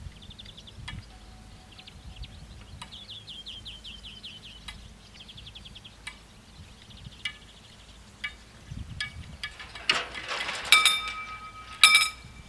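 Level-crossing barrier booms rising to upright: scattered clicks, then loud metallic clanks with ringing tones in the last couple of seconds as the booms reach the top. Birds trill faintly in the first half.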